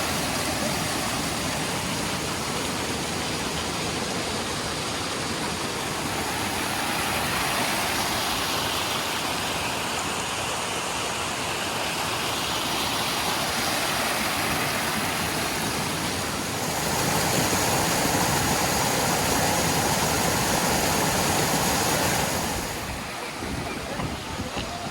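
Waterfall: a steady rush of falling water, getting louder about two-thirds of the way through and easing off again near the end.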